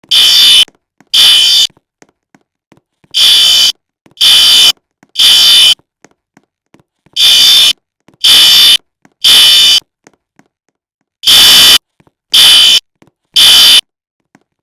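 Fire alarm sounding the temporal-three evacuation pattern: harsh buzzing beeps of about half a second each, in groups of three, with a pause of about a second and a half between groups.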